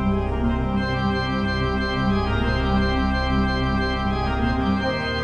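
Background music of held, organ-like chords, the harmony shifting near the end.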